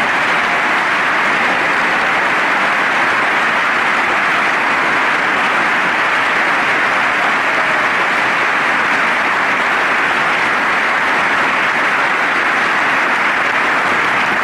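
Long, steady applause from a large audience: a dense, even clatter of many hands clapping, with no voice over it.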